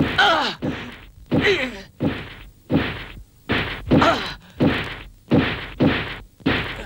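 Repeated blows of a wooden staff landing on a man's armoured back, about eleven strikes at a steady pace of a little under two a second. Each blow is followed by a short, falling groan from the man being beaten.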